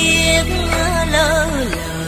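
Traditional Vietnamese music from a plucked long-necked fretted lute, its melody wavering and sliding down in pitch near the end, over a steady low hum.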